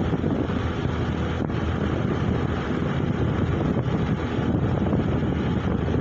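Steady wind buffeting the microphone and road noise from a motorized two-wheeler riding along at speed.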